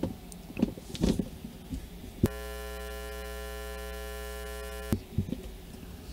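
Steady electrical mains buzz with many evenly spaced overtones, cutting in with a click about two seconds in and cutting off with a click about two and a half seconds later. A few short knocks come before and after it.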